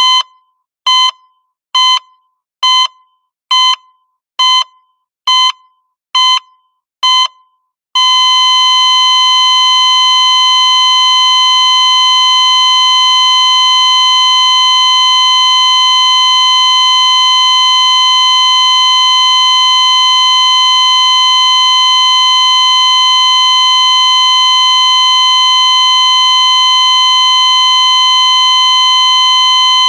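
Hospital heart monitor beeping steadily at a little under one beep a second, nine beeps in all. About eight seconds in the beeps give way to one continuous unbroken tone at the same pitch: the flatline that signals the heart has stopped.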